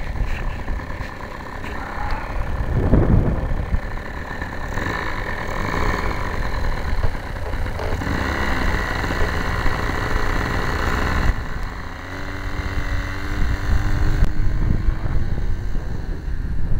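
ENYA 60 model glow engine of a PT-40 RC trainer plane running, its pitch and level shifting several times as the throttle is worked, then opening up louder near the end for the takeoff roll.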